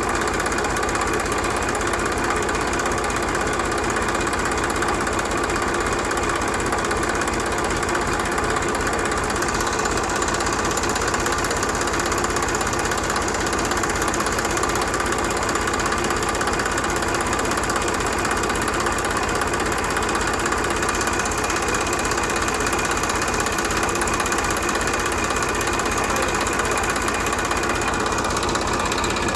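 A small motor running steadily, its speed unchanging.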